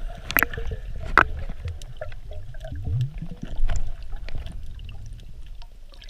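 Water sloshing and gurgling around a free diver, over a steady low rumble, with two sharp clicks in the first second or so.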